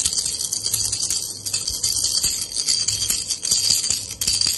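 Plastic baby rattle shaken rapidly and continuously, its loose beads making a fast clatter.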